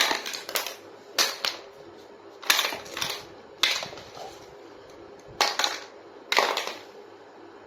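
Plastic crinkling and crackling in about eight short bursts, irregularly spaced, from handling a toy kitchen set and its wrapping.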